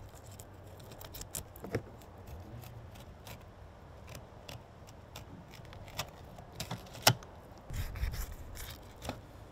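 Fillet knife cutting through a grunt's flesh and along its rib bones: a scattered run of small crackling clicks and scrapes, the sharpest about seven seconds in.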